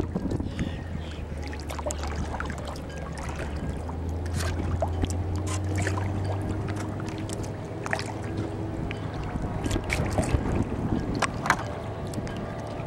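Kayak paddle strokes splashing and dripping, with water lapping at the hull over a steady low rumble.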